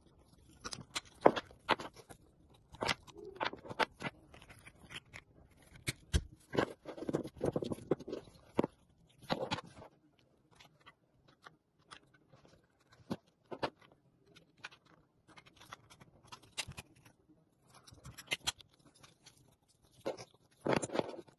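DJI Action 2 camera parts and plastic accessories being handled: a run of irregular sharp clicks and taps with short stretches of rubbing and scraping of plastic on plastic and on a tabletop. The clicks grow sparser in the middle and pick up again near the end.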